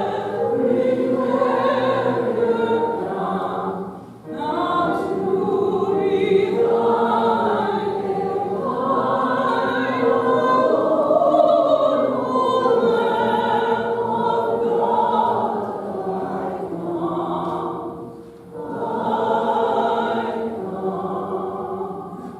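A choir singing a worship song in long sung phrases. It breaks briefly about four seconds in and again near eighteen seconds, and dies away at the end.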